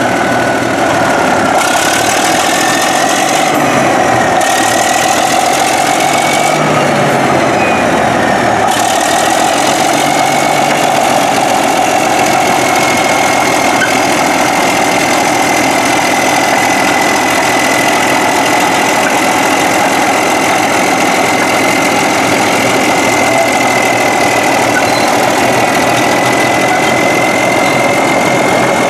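Caterpillar D9 crawler dozer's diesel engine running loud and steady as the machine moves. A high whine wavers in pitch over the first ten seconds or so, then holds steady.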